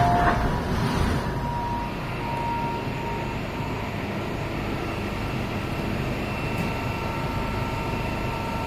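Inside the car of an MTR M-train: a steady running rumble with a few faint, thin whine tones over it, just after the door-closing chime.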